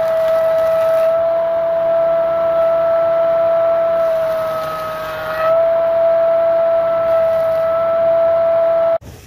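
Electric wood planing machine running with a steady high-pitched whine as a cricket bat blade is passed over its cutter. Its pitch and level sag slightly about four to five seconds in, then recover. The whine stops abruptly near the end.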